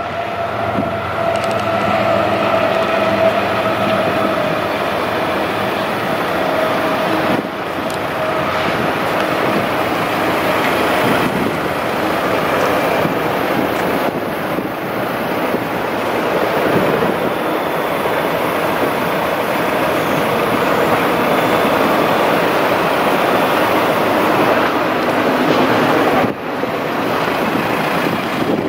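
Mahindra Roxor's turbo-diesel engine idling steadily, heard up close.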